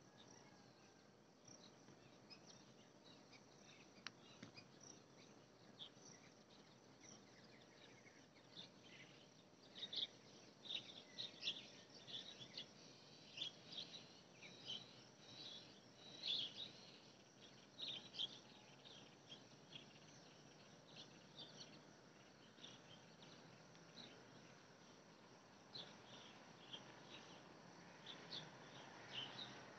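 Faint outdoor ambience: scattered short, high chirps over a low steady hiss, the chirps coming thickest from about a third of the way in to two-thirds, and again near the end.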